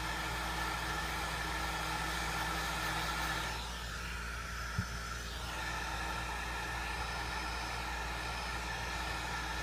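Heat gun running steadily, its fan blowing hot air with a hiss and a steady whine. It is softening the adhesive under a phone's front glass. The hiss dips briefly about four seconds in.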